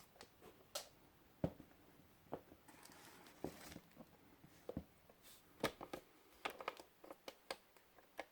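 Faint handling noise as the leather hiking boots and their packaging are moved about: a string of irregular clicks and taps, with a short rustle or crinkle about three seconds in.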